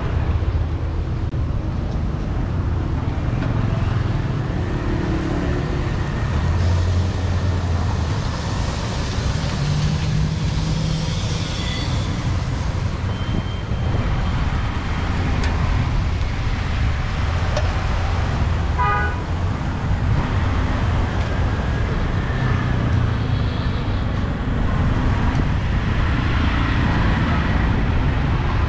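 Steady city road traffic: engines running and vehicles passing in a continuous low rumble, with a brief horn toot about two-thirds of the way through.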